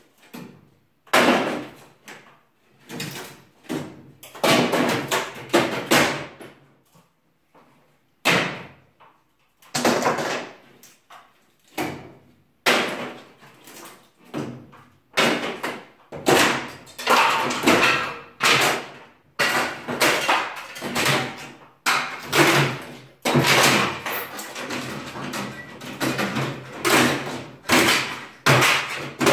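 Ceiling demolition: irregular loud bangs and clatter of wooden ceiling battens and boards being knocked loose, each bang dying away quickly. They come sparsely at first and closer together in the second half.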